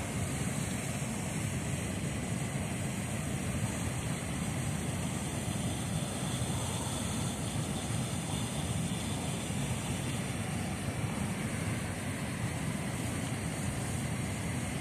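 Steady rush of fast-flowing river water below a dam, a low rumble under a hiss.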